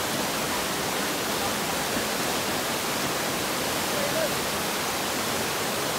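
Steady, even rushing noise that holds at one level without rhythm or change, with a few faint, brief pitched sounds standing out now and then.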